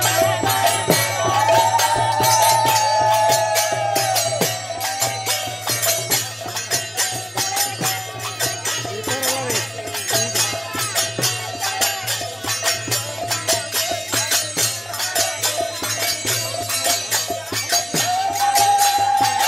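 Devotional kirtan music: quick, continuous metallic percussion strikes, with long held, wavering melody notes near the start and again near the end.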